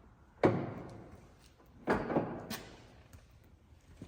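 Heavy metallic clunks from the headstock of an Acer Dynamic manual engine lathe as its speed-change gear levers are shifted, setting the spindle to 365 RPM: two hard clunks about a second and a half apart, each dying away, then a lighter click.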